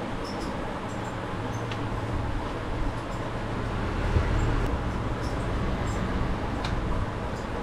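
Steady low background rumble with a few faint light clicks scattered through it.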